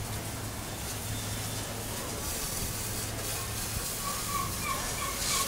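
High-pressure water jet spraying the underside of a raised vehicle: a steady hiss over a low machine hum. About four seconds in, a faint chirping tone starts, repeating roughly three times a second.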